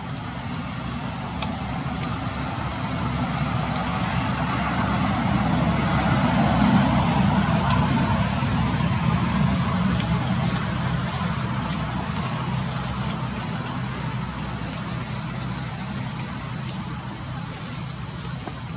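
A steady high insect drone over a low rumble of a passing motor vehicle, which swells about six seconds in and then eases off.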